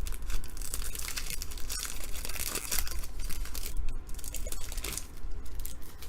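Plastic foil wrapper of a trading card pack crinkling and tearing as it is opened by hand: dense crackling that eases about five seconds in.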